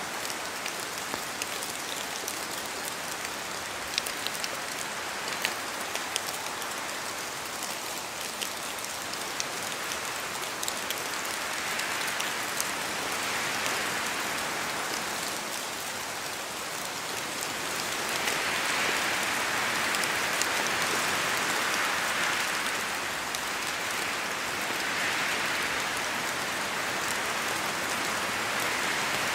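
Steady rain falling in a forest, with sharp ticks of single drops landing, most distinct in the first third. From about ten seconds in, rushing gusts of wind through the trees swell and fade, loudest around the middle and again near the end.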